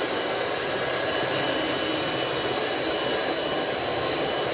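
Electric hand mixer running at a steady speed with a constant whir, its twin beaters whisking cake batter with flour just added.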